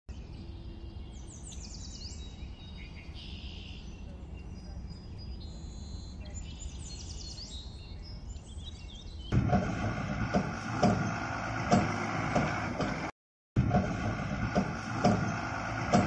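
Birds chirping over a quiet outdoor background. About nine seconds in, a much louder steady whir of small toy-vehicle motors cuts in, with irregular short knocks, and drops out briefly once.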